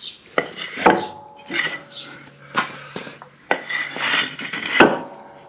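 A series of metal clinks and knocks, about five in all, some ringing briefly, with rubbing and shuffling between them.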